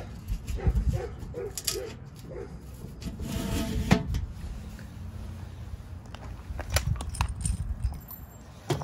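Small machine screws and nuts being handled and fitted to a Weber kettle lid and hinge, with light metallic clinks and rustling. A quick run of about five short squeaky sounds comes in the first couple of seconds.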